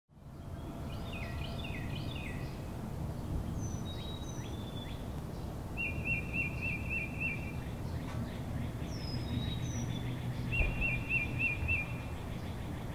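Birds calling over a steady low background rumble: a quick run of falling chirps, then a few thin high whistles, and twice a short trilling phrase of about five notes.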